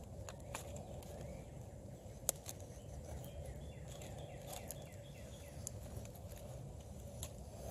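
Quickhatch Quicklore knife blade shaving thin curls down a stick of split wood in short, irregular scraping strokes, carving a feather stick, with one sharp click a little over two seconds in.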